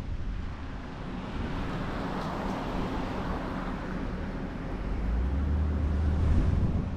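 Car driving slowly, heard from a camera mounted on its roof: a low road and engine rumble with wind on the microphone, the rumble growing louder about five seconds in.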